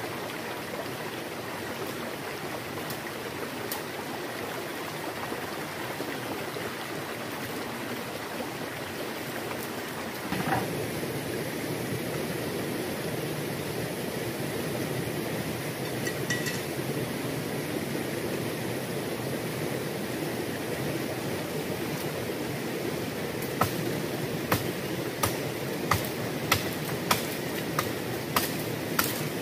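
Shallow river running over rocks: a steady rushing of water that shifts a little about ten seconds in. In the last six seconds come about ten sharp knocks, roughly one every half second.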